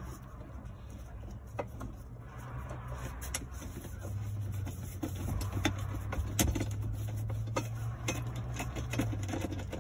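Ratchet wrench with a 7mm socket backing out a bolt on a dash support bracket: a run of quick, irregular metallic clicks that grows busier about three seconds in. A steady low hum runs underneath.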